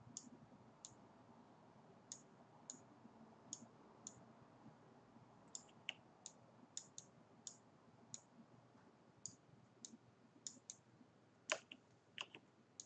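Faint, irregular computer mouse clicks, a couple of dozen scattered through otherwise near silence, with a louder click and a quick pair near the end.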